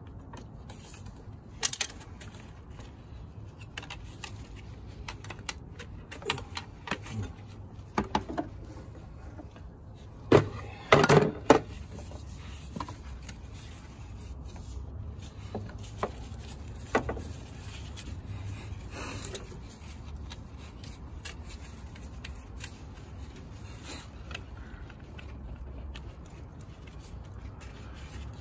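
Scattered clicks, clanks and scrapes of hand tools and metal parts being handled in a car's engine bay, with the loudest cluster of knocks about ten to twelve seconds in. A faint steady low hum runs underneath.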